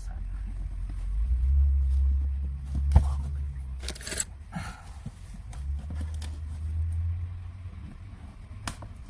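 Camera handling noise: low rumbling and bumps as the camera is moved, with a sharp knock about three seconds in and short scraping, rustling noises around four to five seconds. Later come light clicks of hands working the flap of a cardboard laptop box.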